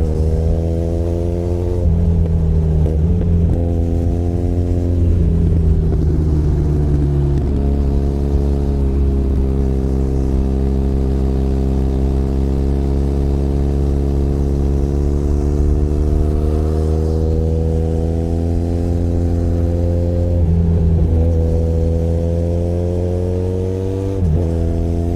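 Benelli Leoncino 500 Trail's parallel-twin engine pulling under throttle while riding. It rises in pitch and drops sharply several times in the first few seconds, then makes a long slow climb, with two more drops near the end.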